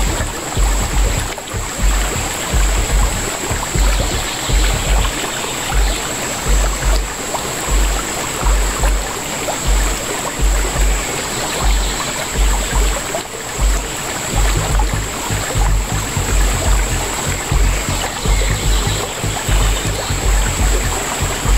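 Background music with a prominent bass line, over the rush of shallow river water running past a kayak.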